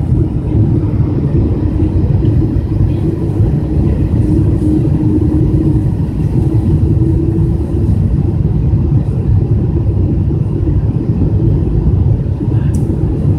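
Boeing 777-200 cabin noise on final approach: a loud, steady low rumble of engines and rushing air, with a steady drone running through it.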